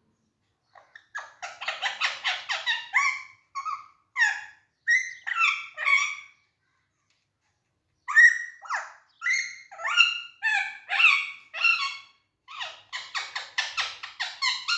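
Alexandrine parakeet calling in quick runs of short chattering calls and separate squawks that bend up and down in pitch, with a pause of about a second and a half midway.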